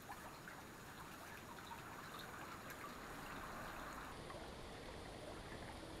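A small creek flowing: a faint, steady trickle and rush of water.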